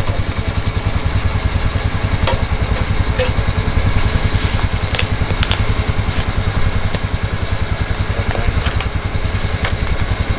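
Side-by-side UTV engine idling steadily, with a few faint knocks.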